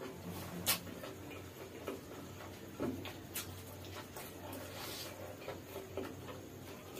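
Close-up eating sounds: wet chewing and lip smacks with scattered sharp clicks as flatbread is torn by hand and eaten, over a low steady hum.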